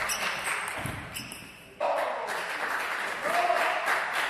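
Table tennis ball clicking off rubber bats and the table in a rally, over the murmur and noise of a sports hall. The sound drops away and then cuts in suddenly, louder, a little under two seconds in.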